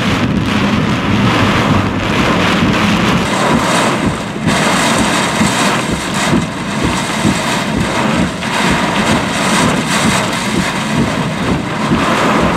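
Heavy wind-driven thunderstorm rain pounding the vehicle, with gusting wind that swells and eases in loudness.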